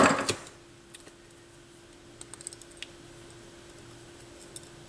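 A short clatter at the start, then a few faint, scattered small clicks as small turntable parts (head shell, cartridge, weight) are handled, over a steady faint hum.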